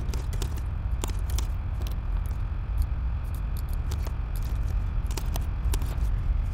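Typing on a computer keyboard: irregular runs of key clicks as words are entered, over a steady low hum.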